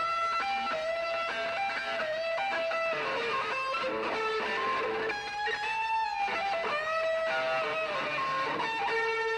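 Live early-1970s rock band in an instrumental break without vocals: electric guitar plays a lead line of held notes that slide in pitch, over strummed guitar.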